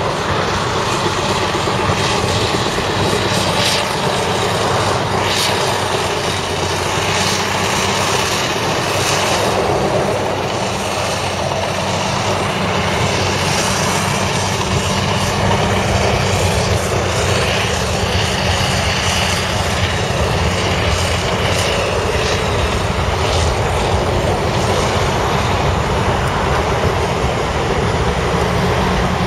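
Heavy diesel earthmoving plant running steadily: Volvo articulated dump trucks and a Caterpillar D6R crawler dozer working in mud, the engines a continuous loud drone.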